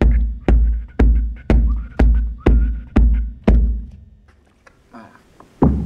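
Deep, heavy thumps from a tall bamboo stamping tube struck down against the floor. They come in an even beat of two a second, eight in a row. After a short pause there are a few light knocks, then one last heavy thump near the end.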